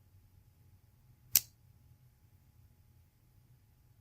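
One sharp, solid click from a Moki-made lockback folding knife as its blade snaps into place against the backspring, about a second and a half in.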